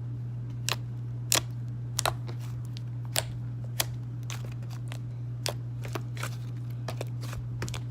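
Slime being squished and stretched by hand, giving irregular sharp clicks and pops, about a dozen of them, over a steady low hum.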